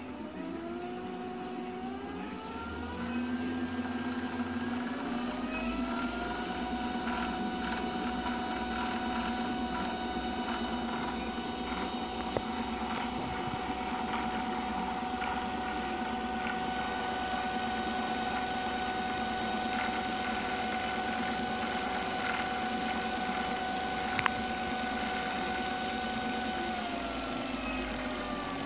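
A Unimat SL1000 lathe running on a 150 W, 24 V electric scooter motor through its belt drive, giving a mechanical whine. The pitch rises over the first few seconds as the variable speed is turned up, holds steady, then falls near the end as the motor slows.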